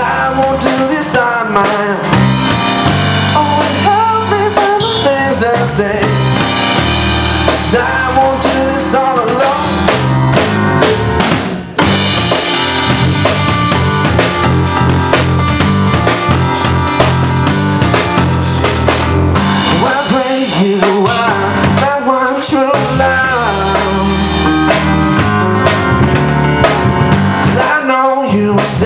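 Live band playing: electronic keyboard, a drum kit with snare, bass drum and cymbals, and electric bass guitar.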